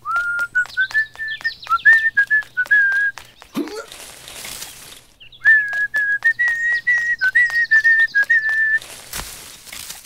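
A person whistling a short tune in two phrases of held notes, with quick clicks running through it. A brief whooshing sound fills the gap between the phrases.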